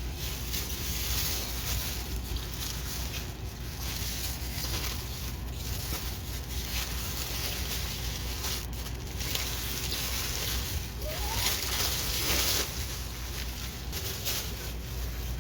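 Plastic packaging of diamond painting kits rustling and crinkling continuously as the kits are handled and sorted.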